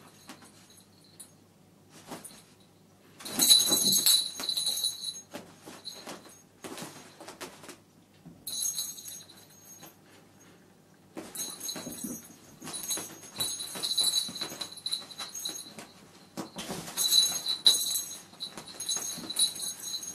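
A small toy bell jingling in four bouts of shaking, among the rustling, scratching and scrabbling of two kittens wrestling with a fabric cat tunnel and the ball toy dangling from it.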